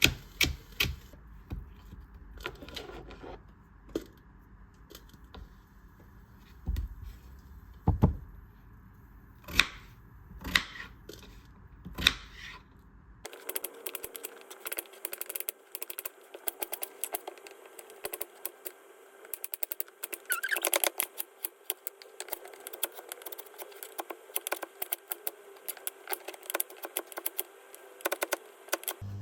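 Scattered small clicks and a few duller knocks. After an abrupt change about 13 s in, a dense run of quick light clicks over a steady hum.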